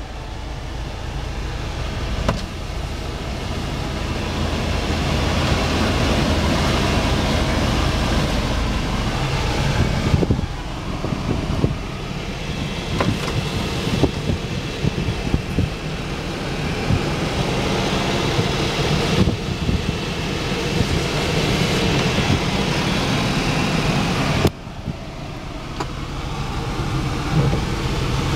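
Honda Acty HA4 kei truck's small three-cylinder engine and road noise heard from inside the cab while driving. The sound builds over the first ten seconds, drops suddenly about ten seconds in and again near the end, then builds again.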